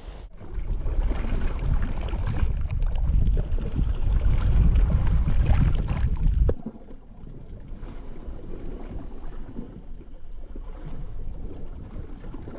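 Bare feet wading through shallow water, splashing and sloshing with each step. For the first six seconds heavy wind noise on the microphone rumbles underneath; after that it is quieter and the splashing is softer.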